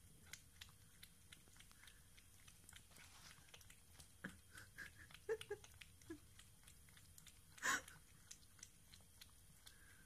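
Cat lapping milk from a small metal dish: faint, quick wet licking clicks about three a second, with one louder click about three-quarters of the way through.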